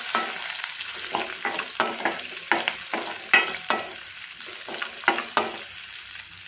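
Chopped onions and curry leaves sizzling in oil in a stainless steel pan, stirred with a steel spoon that scrapes and clinks against the pan about three times a second. The stirring stops near the end, leaving a fainter sizzle.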